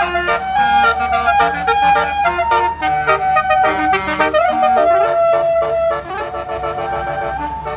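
Bus 'telolet' musical air horn, a set of many trumpets sounding together, playing a quick tune of stepped notes with a short upward slide about four seconds in, over a low rumble.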